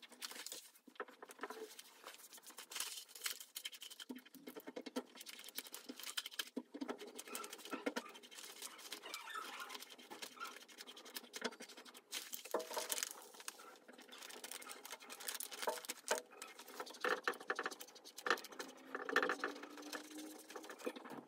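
Self-adhesive marble-print wallpaper being peeled, pressed and smoothed onto a tabletop by hand: irregular crackling, rustling and scratching of the plastic sheet under the palms.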